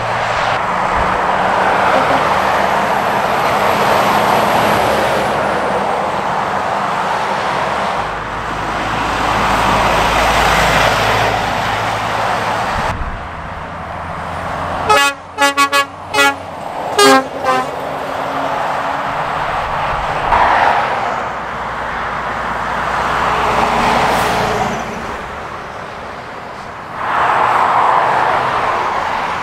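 Lorries and cars passing one after another at speed on a main road, a steady rush of tyre and engine noise that swells as each vehicle goes by. About halfway through, a vehicle horn gives a quick run of five or six short toots within about two seconds.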